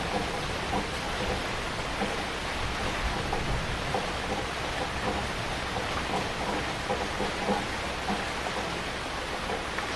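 Heavy rain falling steadily, a dense hiss with many scattered drops spattering on a surface.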